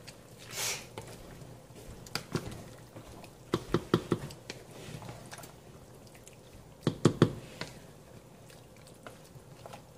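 A wooden spoon stirring a thick meat-and-blood stew in a stainless steel pot: wet squelching, with quick knocks of the spoon against the pot in a cluster about three and a half seconds in and another about seven seconds in.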